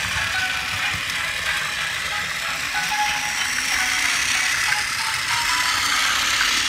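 Plarail Talking Percy, a battery-powered toy train, running along plastic track: its small motor and plastic gears whir steadily with a light rattle. Music with short melody notes plays over it.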